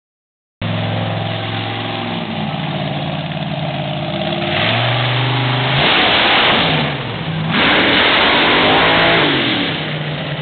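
Big-block engine of a lifted mud truck running hard through a mud pit. It starts at a steady pitch, then climbs about halfway in. It is loudest and roughest in the second half, with the revs sweeping up and down as the throttle is worked, before easing off near the end.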